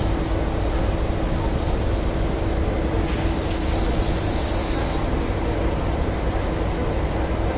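A sharp two-second hiss of steam from the departing Victorian Railways R class 4-6-4 steam locomotive R707, starting about three seconds in and cutting off suddenly. Underneath it is a steady low rumble with a constant hum.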